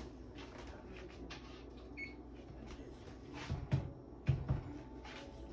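Kitchen oven timer giving a short electronic beep about two seconds in, followed by two dull thumps a little over a second later, the loudest sounds here, over a faint steady low hum.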